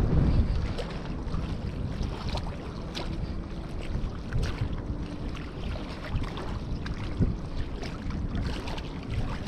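Strong wind buffeting the microphone, heaviest in a gust right at the start, then a steady rush with scattered light ticks.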